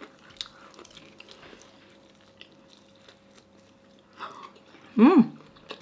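Close-miked chewing with soft mouth clicks, then a short hummed "mmm" about five seconds in.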